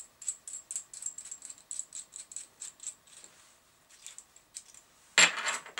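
A small plastic bag and a metal PL259 coaxial plug being handled: light clicks and rattles for about three seconds, then a louder crinkling rustle near the end.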